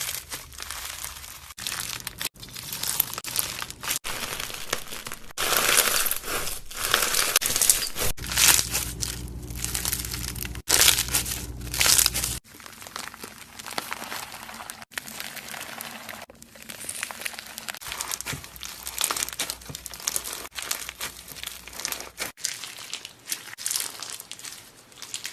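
Slime being squeezed and poked by hand, with dense crackling and crunching sounds. The sound changes abruptly every few seconds, as one slime clip cuts to the next.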